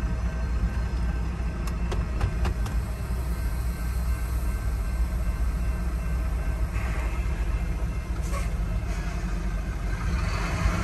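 Low, steady rumble of a freight train at a grade crossing, heard from inside a car, with a few faint clicks about two seconds in.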